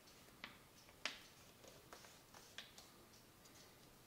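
Fingers creasing a fold in a sheet of paper on a wooden table: faint, with a few sharp, irregular ticks, the loudest about a second in.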